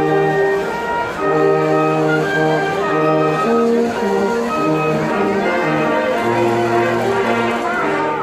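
Orchestral music led by brass, several parts holding notes together in changing chords.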